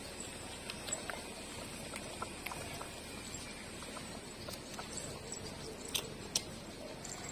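Puppies suckling at their mother's teats: soft wet smacking and clicking sounds scattered throughout, with two louder clicks about six seconds in.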